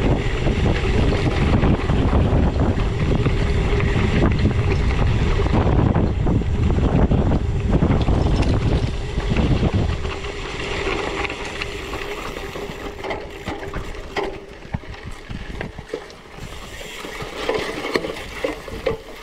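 Wind buffeting the microphone while a gravel bike on 38 mm tyres rides fast over dirt, with a steady hum underneath. About ten seconds in, the wind drops and the crunch, clicks and rattles of tyres and bike over rough ground come through.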